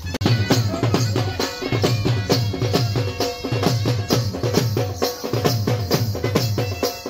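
Live folk music for dancing: a dhol drum beaten in a fast, driving rhythm with deep booms about once a second, under a wind instrument playing a melody.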